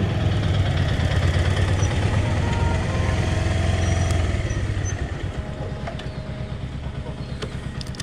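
Motorcycle engine running as the bike rolls slowly. About five seconds in it drops to a quieter idle with an even, rapid beat.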